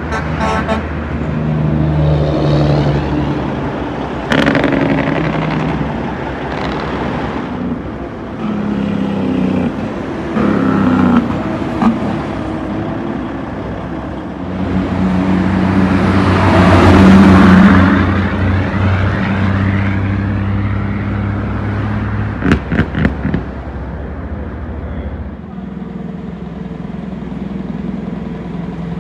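Heavy diesel trucks running and passing on a road, with one loud pass about halfway through. A few sharp knocks come about three-quarters of the way in.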